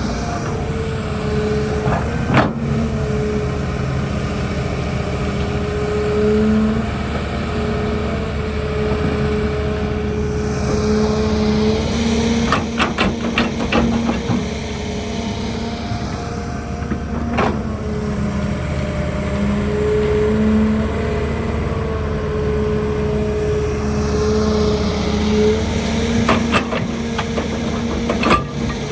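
Excavator's diesel engine running steadily with a constant whine, and sharp metallic clanks every few seconds, several in quick succession about halfway through and again near the end.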